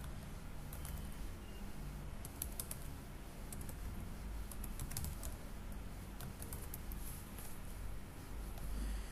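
Typing on a computer keyboard: irregular runs of quick keystroke clicks, with a low steady hum underneath.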